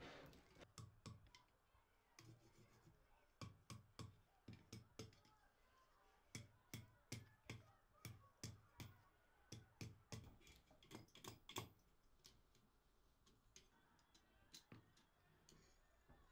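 Light, faint hammer blows on a thin red-hot iron rod against an anvil as it is forged into a brooch. The blows come in short runs of about three taps a second, with pauses between the runs.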